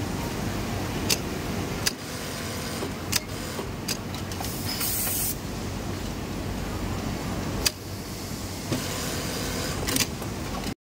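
Steady machine hum of a garment factory floor with industrial sewing machines running. A handful of sharp clicks are scattered through it, and a brief high hiss comes about five seconds in.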